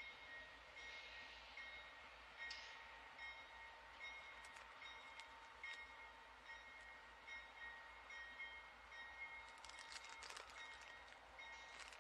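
Electronic railroad crossing bell ringing faintly, a steady repeated ding. A few sharp clicks come through about ten seconds in.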